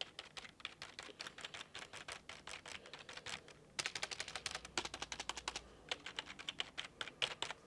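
Typing on a traditional office keyboard: a rapid stream of key clicks, with a brief pause a little under four seconds in before the typing picks up again.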